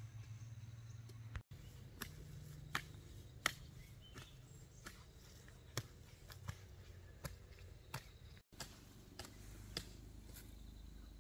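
A faint series of irregular knocks or taps, about one or two a second, over a low steady hum.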